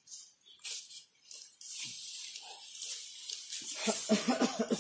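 Dry straw thatch rustling and crackling as it is handled and bound to a bamboo pole: scattered small crackles at first, turning to a steady rustle, with a brief man's voice near the end.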